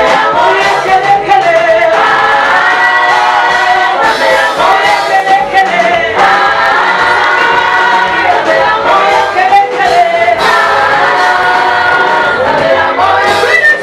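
Choir singing a Swahili gospel song in several-part harmony, in held phrases that change every few seconds.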